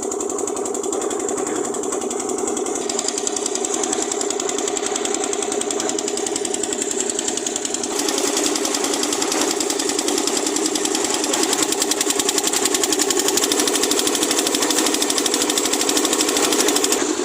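Construction concrete mixer running with a rapid, even mechanical clatter, stepping up louder about eight seconds in.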